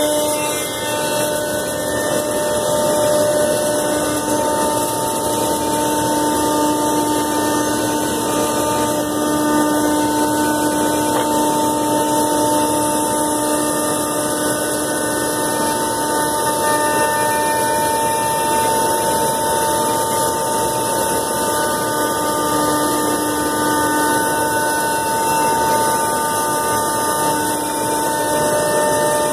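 Komo VR510 Mach 1 CNC router spindle running and cutting through a sheet: a steady whine of several held tones over a constant hum and cutting noise.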